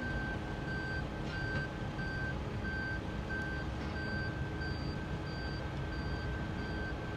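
Electronic warning beeper sounding a steady repeating beep, about one and a half beeps a second, that stops near the end, over a steady low rumble of traffic and rail vehicles.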